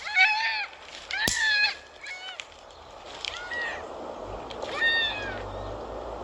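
A series of short animal calls, each rising and then falling in pitch, about five in all, the loudest about a second and a half in.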